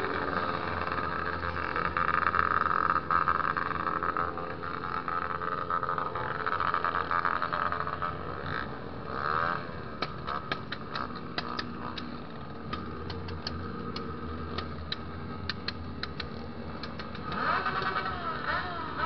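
Honda XR 250 Tornado's single-cylinder engine running on the move, its note rising and falling with the throttle. A run of sharp clicks is heard through the middle.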